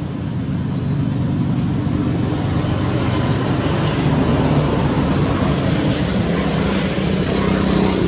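Steady engine hum of a motor vehicle under a broad rushing hiss, growing a little louder near the end.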